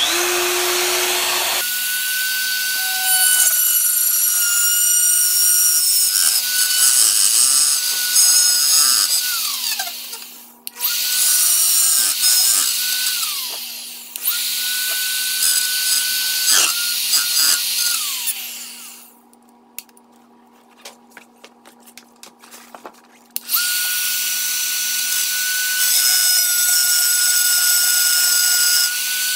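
RotoZip spiral saw running at high speed as it cuts freehand through a plastic car bumper cover: a steady high whine with a rasping cutting noise. It is switched off and winds down three times, and the longest pause, with a few light clicks, comes about two-thirds of the way through before it starts again.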